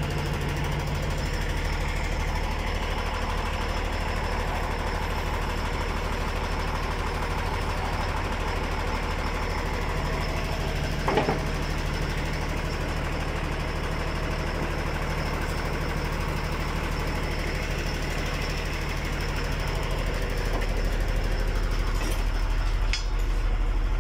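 Engine idling steadily, with one short clank about eleven seconds in.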